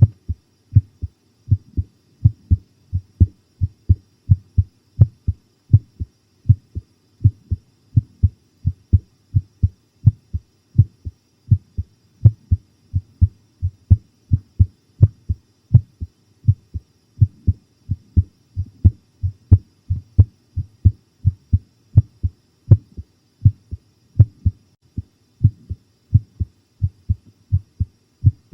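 A human heartbeat recorded close on the chest: steady paired lub-dub thumps, deep and regular. The heart is pounding from the fright of watching a horror programme.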